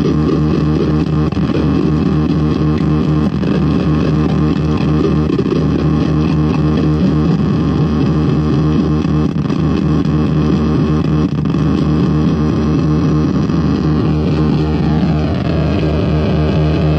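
Akai Rhythm Wolf drum machine pattern fed through a Glitch effects pedal and mangled into a loud, dense, noisy, distorted stutter. A few swooping pitch sweeps come near the end.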